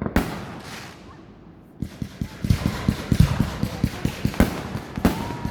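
Fireworks going off: a sharp bang at the start that trails off in a hiss, then from about two seconds in a fast, irregular string of crackling pops, with another loud bang near the end.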